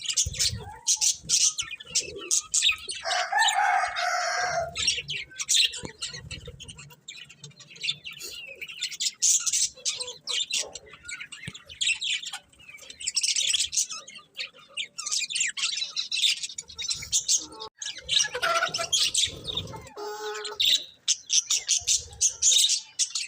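A group of budgerigars chirping and chattering in a rapid, busy stream of high chirps, with a louder, lower-pitched call about three seconds in and another about eighteen seconds in.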